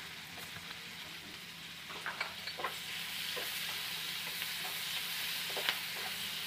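Freshly added chopped onions sizzling in hot butter and oil in a frying pan, the sizzle growing louder a few seconds in, with scattered light clicks of a spatula stirring them.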